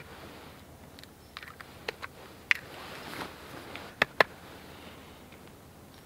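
Eggs being cracked on a plastic mixing bowl: a few short, sharp taps and cracks, with a close pair of taps about four seconds in.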